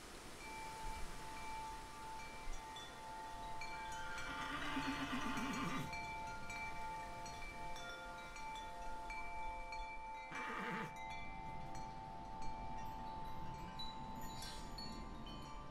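Wind chimes ringing, their tones overlapping and sustained, while an animal calls twice: a wavering call nearly two seconds long about four seconds in, and a shorter call that falls in pitch about ten seconds in.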